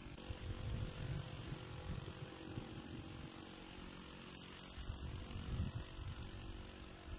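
Steady distant motor drone with uneven low rumbling over it that swells and fades.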